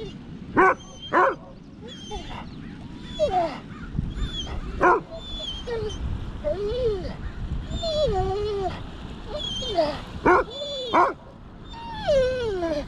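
A dog whining and yipping: a string of short cries that bend up and down in pitch, broken by about five sharper, louder yips.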